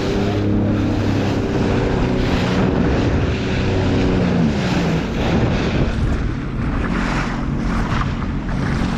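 Sea-Doo FishPro jet ski's engine running under way, with water rushing and wind on the microphone. About four and a half seconds in the engine note falls as the throttle comes off, settling to a lower steady note.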